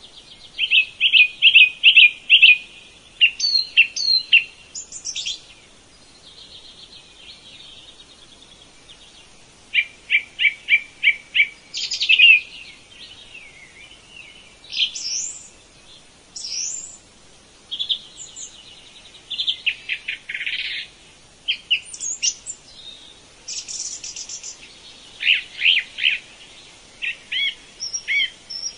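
Songbirds singing: quick runs of repeated chirps and short whistled glides in several different phrases, with brief pauses between them.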